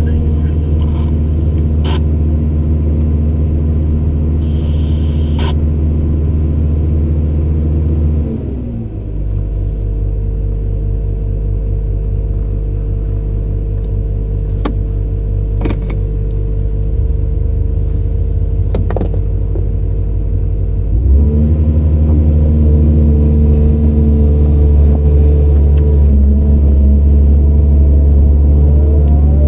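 Diesel engine of heavy earthmoving machinery running under steady load; about eight seconds in it drops to a lower speed, and about thirteen seconds later it rises back up. A few sharp clicks sound while it runs slower.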